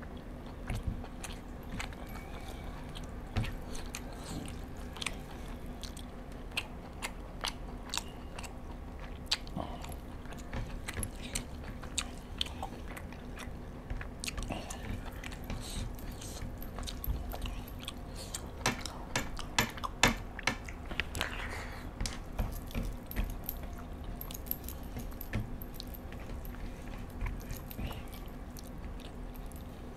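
Close-up chewing and biting of crispy-coated fried chicken: many short wet crunches and mouth clicks, densest and loudest about two-thirds through, over a steady low hum.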